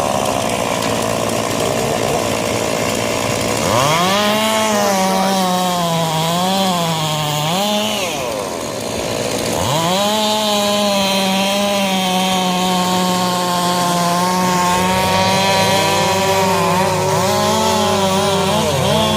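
Two-stroke chainsaws running. One saw revs up to full throttle about four seconds in, its pitch sagging and recovering as it works through wood, and drops off briefly. It then revs up again and holds a high, fairly steady pitch while cutting, with other saws running underneath.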